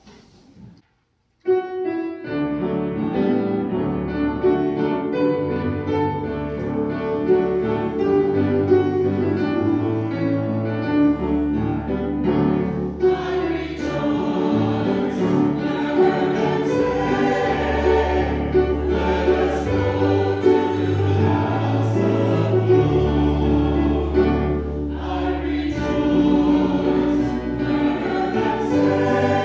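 A choir singing with instrumental accompaniment and sustained bass notes, starting about a second and a half in after a brief silence.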